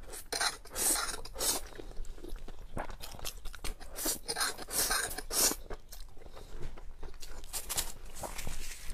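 Close-miked slurping and chewing of sauce-coated spicy noodles, a rapid irregular run of short noisy mouth sounds.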